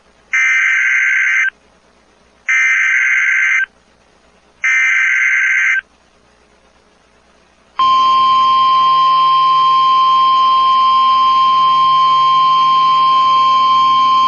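Emergency Alert System alert opening: three bursts of screeching SAME digital header tones, each about a second long with short gaps between. About eight seconds in, a loud, steady single-pitch attention tone starts, the alarm that announces a tornado warning broadcast.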